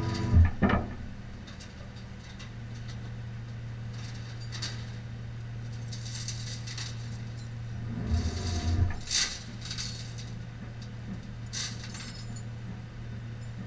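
Tow truck engine idling with a steady low hum, while metal clinks and rattles come and go, with heavier clanks just after the start and again about two-thirds of the way through.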